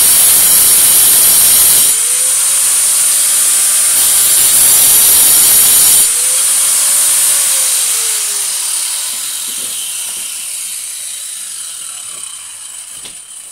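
Electric angle grinder grinding, loud and hissy, its motor pitch dipping and recovering as the disc bites. After about six seconds it is let off and winds down, its whine falling and fading away.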